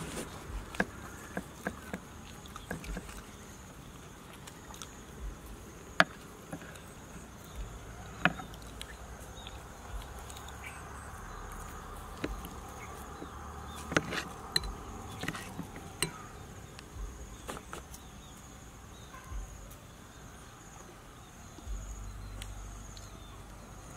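Metal knife and fork clicking and scraping against a plastic plate as cooked chicken is cut and pulled apart, in scattered sharp ticks. Behind them a steady high insect drone runs on.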